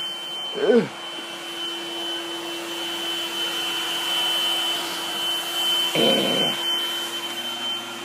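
Vacuum cleaner running steadily, a constant motor drone with a thin high whine over it. A person's voice cuts in briefly near the start and again about six seconds in.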